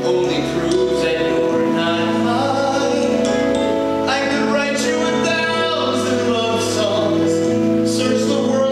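A man singing a slow musical-theatre ballad live, with instrumental accompaniment.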